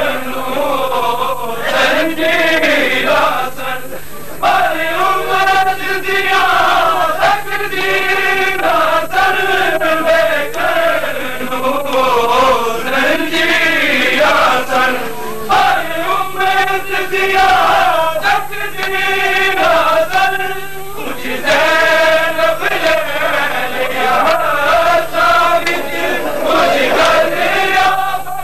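Men chanting a noha, a Shia mourning lament, with several voices singing together in a slow, wavering melody.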